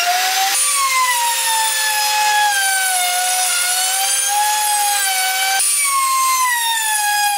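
Table-mounted wood router running at high speed with a steady high whine, its pitch sagging slowly as the bit cuts a profile into a wooden strip fed along the fence. The whine breaks off and jumps in pitch twice, about half a second in and near six seconds.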